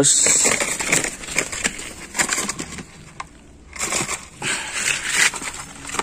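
Brown paper bag rustling and crinkling in the hand as a banana is handled. It crackles irregularly, loudest at first, eases off about three seconds in, then picks up again.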